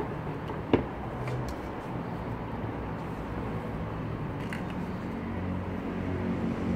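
A few light clicks and knocks of metal hardware being handled on a table, over a steady low hum that grows louder from about five seconds in.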